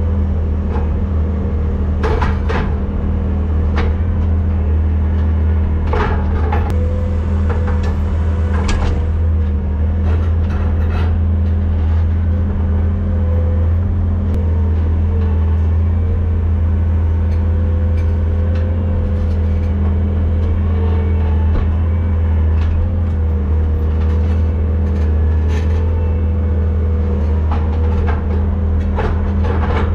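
Skid-steer loader engine running steadily, heard from the operator's seat, with a few sharp knocks and clanks as the bucket digs into the soil.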